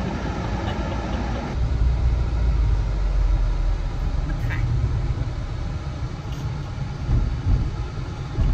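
Low, steady rumble of a car heard from inside the cabin, engine and road noise with no speech over it.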